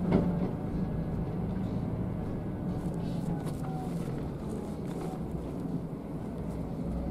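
Scania K360 coach's diesel engine running at low speed, heard from inside the cabin, with a steady low hum. The body rattles and knocks as the bus lurches over broken, cracked concrete road, with a sharp jolt right at the start.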